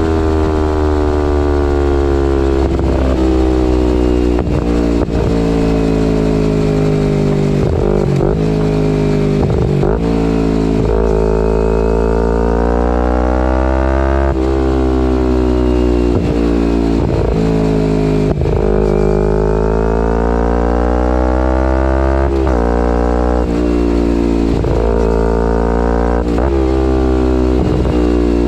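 Kawasaki Ninja 250R's parallel-twin engine through a full Graves race exhaust, riding with the revs easing down slowly for about twelve seconds. The note changes sharply about halfway, sinks again, then climbs steadily over the last ten seconds, over a constant low rumble of wind and road.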